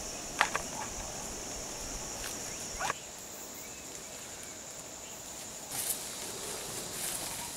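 Steady high-pitched insect drone in forest; it stops about three seconds in and another starts near the end. Over it come a couple of sharp snaps, the loudest about half a second in, and light rustling, as people push through dense undergrowth.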